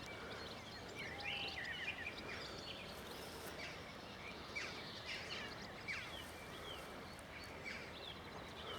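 Faint songbirds chirping and singing in short scattered phrases over a steady background rush of outdoor noise.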